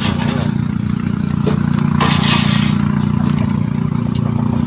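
A steady low motor hum, with a few light clinks and a short scrape of spoons against small ceramic bowls of salt and pepper about two seconds in.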